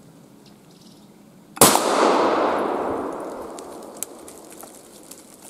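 A single shotgun shot about a second and a half in, with its echo rolling through the forest and fading over about two seconds.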